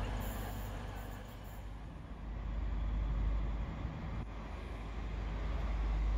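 Diesel train running: a steady low rumble that eases off about a second in and builds again a second later.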